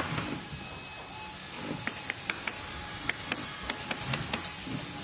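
Factory machinery ambience: a steady hiss of running machines with irregular sharp clicks and knocks, several a second at times, and a few duller thuds.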